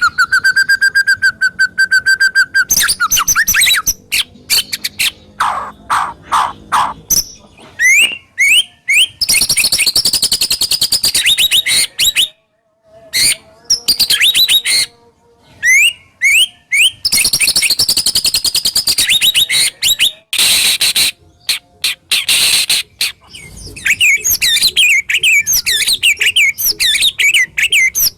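White-rumped shama singing a loud, varied song of the harsh, sharp 'tembakan' type used as training song for other shamas: a held whistle at the start, then rapid trills, quick rising notes and fast repeated chatter, broken by a few short pauses.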